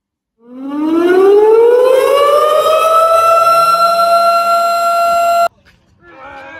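Air-raid siren winding up from a low pitch to a high, steady wail, then cutting off suddenly about five and a half seconds in.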